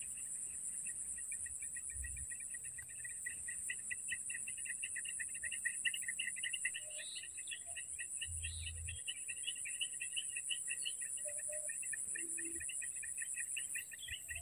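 Insects calling: a continuous, rapid pulsed chirping over a steady high-pitched buzz, with two soft low thumps, one about two seconds in and one past the middle.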